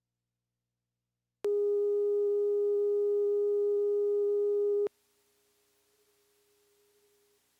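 Steady broadcast test tone sounding over the WBZ-TV colour-bar test pattern. It starts suddenly about a second and a half in, holds one unchanging pitch for about three and a half seconds, then cuts off abruptly, leaving only a very faint low hum.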